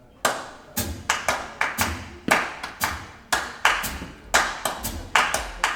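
Opening of a jazz recording played back over hi-fi loudspeakers: rhythmic hand claps, about two to three a second, ringing in a large, reverberant space. A low bass line sounds under them from about a second in.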